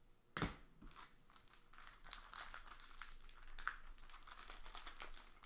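A sharp click about half a second in, then the crinkling of a 2018 Panini Majestic Football foil card-pack wrapper being handled and opened, growing busier toward the end.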